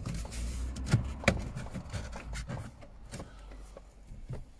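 Plastic knocks and clicks as a double-DIN head unit and its surround trim are pressed back into a Honda Civic Type R FN2's dashboard, with two sharp knocks about a second in.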